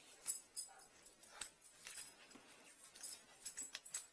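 Scattered light metallic clicks and clinks as gloved hands handle a drain-cleaning shaft at the drain opening.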